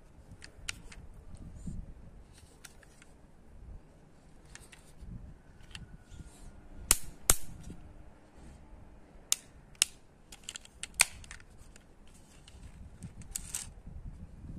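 Sharp plastic clicks and snaps from handling a small plastic toy missile-launcher truck as its launcher tube is swung up and back down, over faint rustling. A pair of clicks about seven seconds in is the loudest, followed by single clicks a few seconds later.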